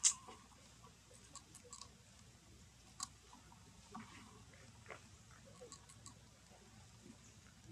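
Faint, scattered short clicks and ticks over a quiet background, the sharpest just at the start and another about three seconds in.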